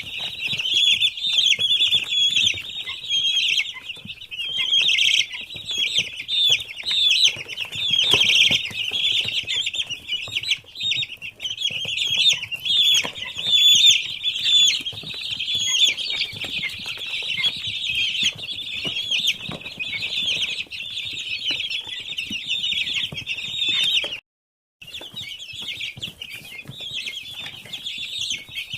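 A large flock of 17-day-old poultry chicks peeping continuously, many high chirps overlapping, with a brief total break in the sound late on.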